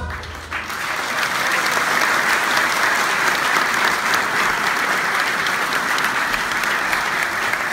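Large audience applauding, the clapping swelling in about half a second in, just after a choir's final chord stops, then going on at a steady level.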